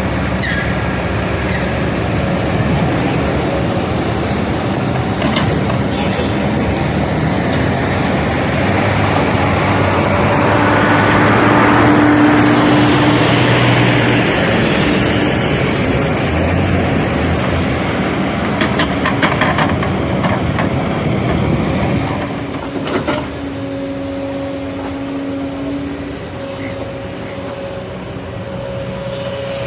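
Kobelco SK220 hydraulic excavator at work: its diesel engine runs steadily and grows louder around the middle as the hydraulics take load. A few sharp knocks come later, then it settles to a lighter running note.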